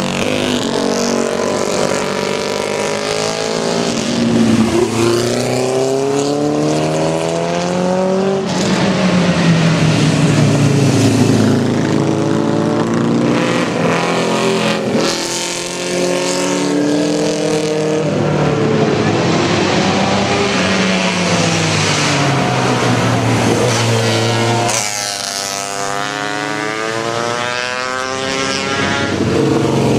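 Vintage racing motorcycles passing one after another through a bend. Each engine's pitch rises and falls as it revs and goes by, and several bikes follow in succession.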